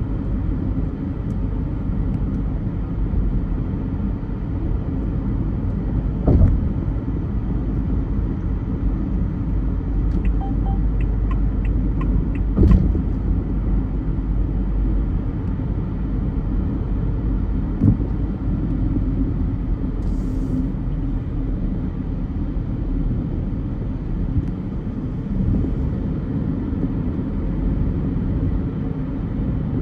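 Steady low rumble of a car driving in traffic, with brief thumps about six, twelve and eighteen seconds in, and a short run of faint ticks a little after ten seconds in.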